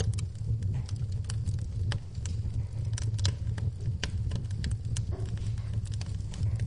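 Wood fire burning in a fireplace, crackling with many irregular sharp pops over a steady low rumble of the flames.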